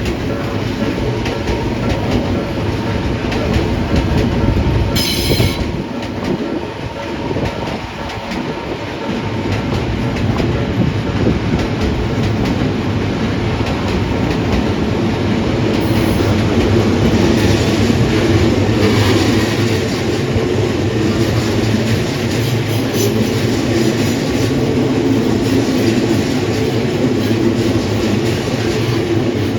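Odakyu Odawara Line electric trains passing over a level crossing, wheels clattering over the rail joints. A brief high-pitched sound comes about five seconds in. The noise eases slightly a second or so later, then builds again as another train passes and stays loud.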